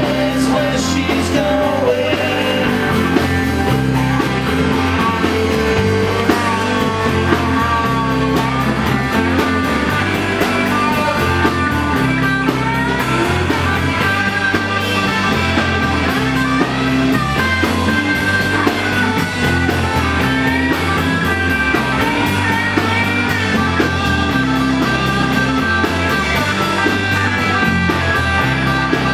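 Live rock band playing: electric guitars over drums, with a steady low line and a fast, even beat on the cymbals.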